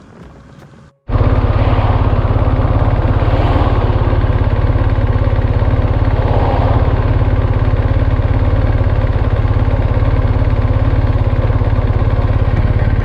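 BMW R 1250 GS Adventure boxer-twin engine running loud and steady at an even pitch, cutting in abruptly about a second in.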